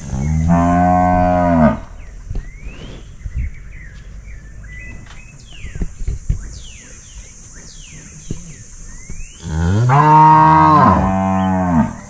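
Cattle mooing: two long moos, one near the start and a longer one near the end, each rising and then falling in pitch. Small birds chirp in between.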